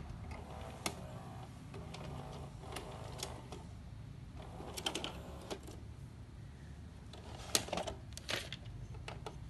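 Sharp VC-MH72 VHS video recorder's tape mechanism working after stop: a series of sharp mechanical clicks and clunks over a low steady motor hum as the tape unloads and the cassette is ejected, with the densest cluster of clicks near the end.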